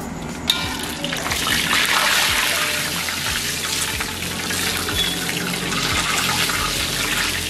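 Hot oil sizzling in a metal wok as batter-coated mung bean balls (payaththam paniyaram) deep-fry. The sizzle swells about a second in, after a single sharp click.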